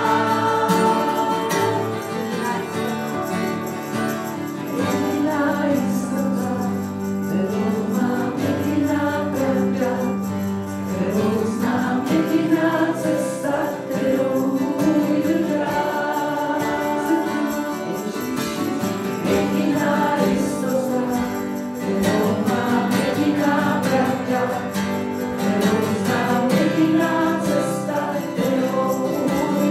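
Live worship song: several women singing together in Czech over a strummed acoustic guitar, with a tambourine jingling along.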